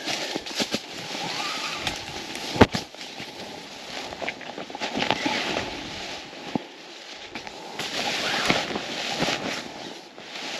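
Scattered clicks, knocks and rustling from hands-on work, with one sharp knock about two and a half seconds in.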